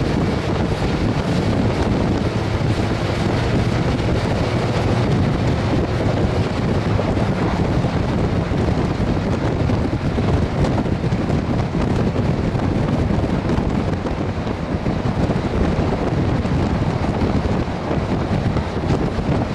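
Steady wind rushing over the microphone, with the road noise and low drone of a car moving at speed.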